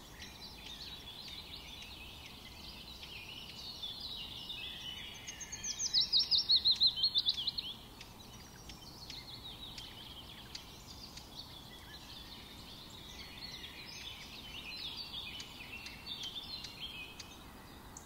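Several small birds chirping and twittering. About six seconds in, one bird gives a louder, fast run of short falling notes, about five a second, lasting some two seconds.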